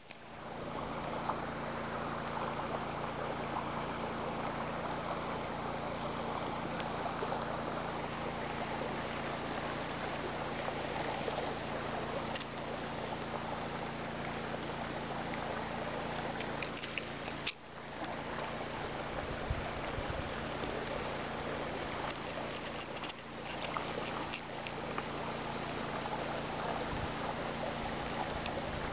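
Steady rushing water noise with a low, even hum under it, briefly dropping out twice in the second half.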